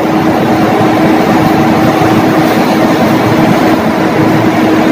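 Loud, steady machinery hum with a constant pitched tone running through it.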